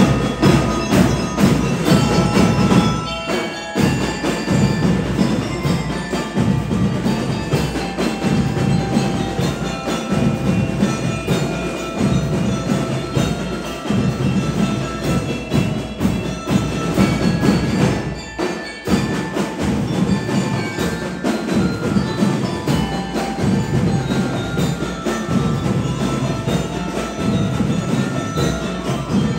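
Drum and lyre band playing: metal bell lyres ring out the tune over bass drums and snare drums, with two short breaks in the playing.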